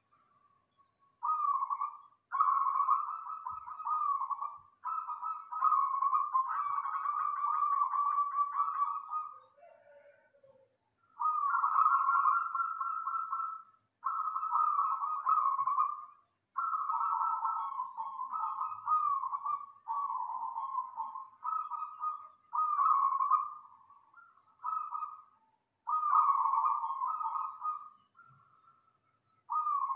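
Zebra dove (perkutut) cooing: loud, dense phrases of rapid trilled coos, each one to three seconds long, repeated with short pauses between.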